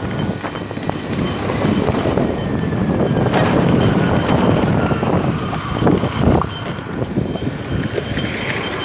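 Motorbike running along a road at speed, a steady engine and road noise with wind on the microphone and a few knocks.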